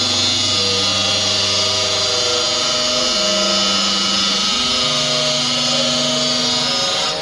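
Saw blade of a stone CNC router cutting stone: a steady, high-pitched hiss that stops abruptly near the end. Sustained background music chords shift underneath it.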